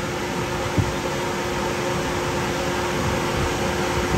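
Steady fan-like rushing noise with a constant hum; a single sharp click just under a second in.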